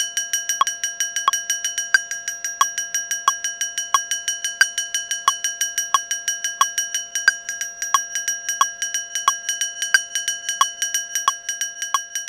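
A short, ringing metallic percussion hit looped from an audio clip in Ableton Live, repeating about three times a second with alternating stronger and weaker hits, played with a swing groove applied.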